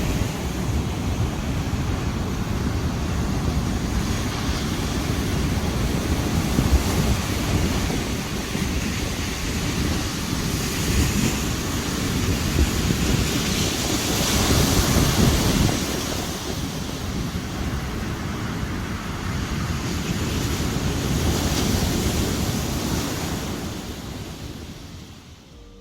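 Sea surf washing onto a beach, with swells of breaking waves, and wind buffeting the microphone. The sound fades out near the end.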